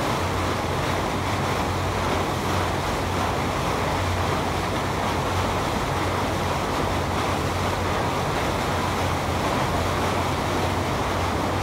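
Tour boat underway: a steady low engine drone under a constant rush of water and wind.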